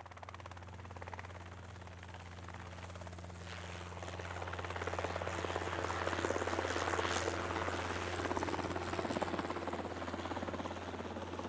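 A steady low hum with a fast fluttering pulse over it. It grows louder in the middle and eases off near the end.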